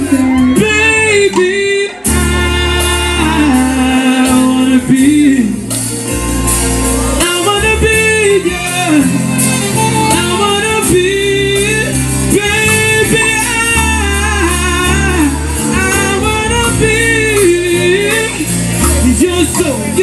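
Live reggae performance: a male singer sings drawn-out, wavering melismatic phrases into a microphone, backed by acoustic guitar and low bass notes.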